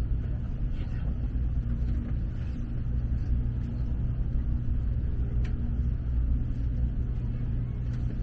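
Shinkansen train running, heard inside the passenger cabin: a steady low rumble as it rolls out of the station at low speed, with a faint hum that comes and goes.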